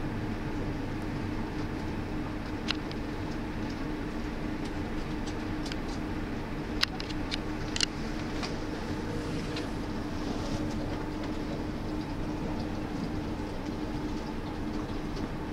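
Steady low hum with a hiss of background noise, broken by a few short clicks about three, seven and eight seconds in.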